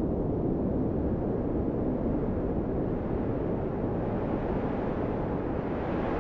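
Wind blowing across a handheld phone's microphone: a steady, deep, rushing noise with no distinct events.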